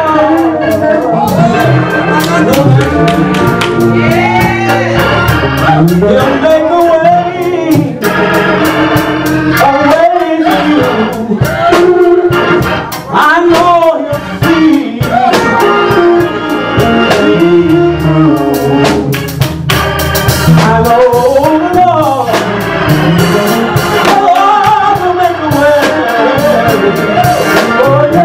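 Live gospel music: a man sings into a microphone over organ chords and a drum kit.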